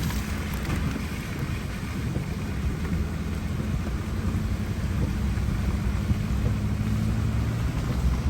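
Strong wind rumbling on the microphone, with the steady low hum of a vehicle engine running underneath.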